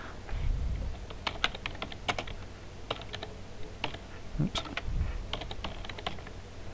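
Typing on a computer keyboard: a run of quick, irregular key clicks as a name is typed out, with a couple of dull low bumps, one near the start and one about five seconds in.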